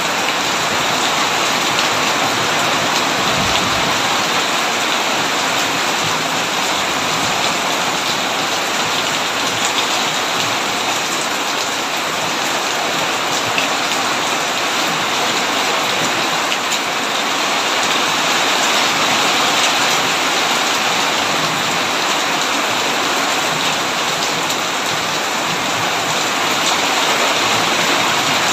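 Heavy rain drumming steadily on a tin roof: a dense, even hiss of drops.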